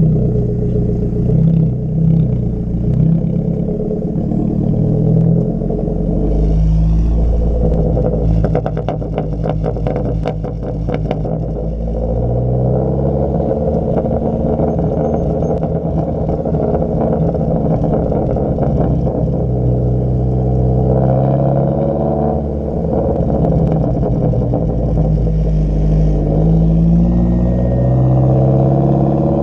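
Exhaust of a 2014 Ford Focus SE with the muffler and one resonator deleted, revving and pulling up through the gears, its pitch climbing and dropping several times. About eight seconds in, a rapid run of pops and crackles lasts a few seconds.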